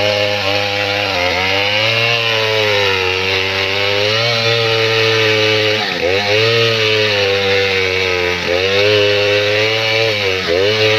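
STIHL 070 two-stroke chainsaw running at full throttle as it cuts through the trunk of a standing acacia tree. Its engine pitch dips and recovers several times as the chain bogs in the cut, most clearly about six seconds in, again a couple of seconds later, and near the end.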